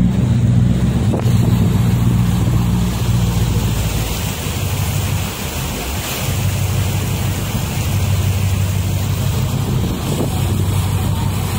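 Bumboat ferry's engine running with a steady low hum, under wind buffeting the microphone and water rushing past the hull. The hum fades for a few seconds about four seconds in, then comes back.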